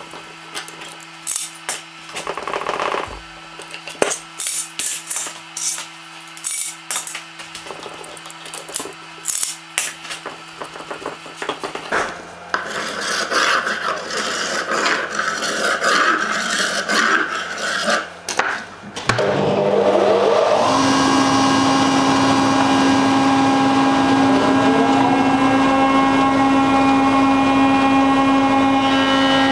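Metal bar clamps clicking and knocking as they are handled on a glued-up wooden board, then a hand scraper rasping dried glue squeeze-out off the wood. About nineteen seconds in, a planer's electric motor starts, rises in pitch as it spins up, and runs steadily.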